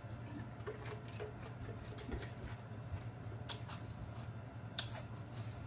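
Quiet mouth noises after a drink: a few faint lip smacks and clicks, spaced irregularly, over a steady low hum.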